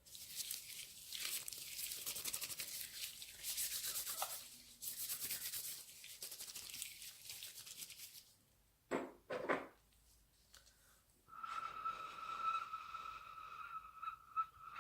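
Close-miked ASMR rubbing and scratching: a dense, fast rasp for about eight seconds, then two short knocks, then a steady high squeak-like tone starting about eleven seconds in.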